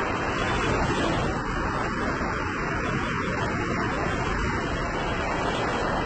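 Small sea waves breaking and washing up onto a sandy beach, a steady surf with no single loud crash.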